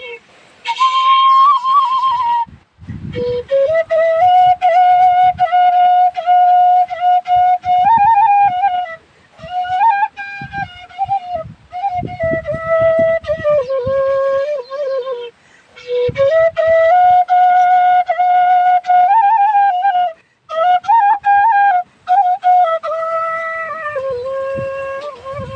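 Bansuri (bamboo flute) playing a melody: long held notes with small ornamental slides, in phrases broken by short pauses for breath.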